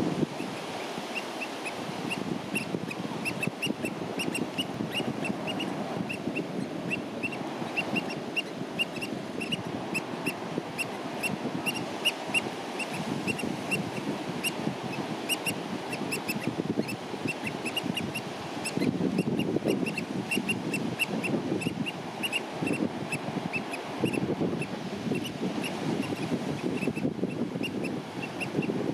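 Eurasian oystercatchers piping: short, shrill calls repeated rapidly for most of the stretch, over a steady low rush of wind.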